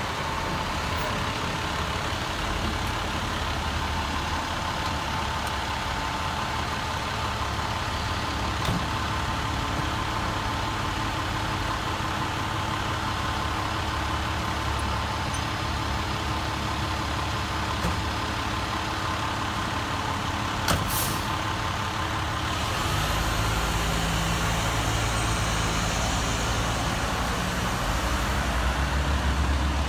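Fire truck's diesel engine idling steadily. About two-thirds of the way through there is a short air-brake hiss. The engine then grows louder and deeper as the truck moves off.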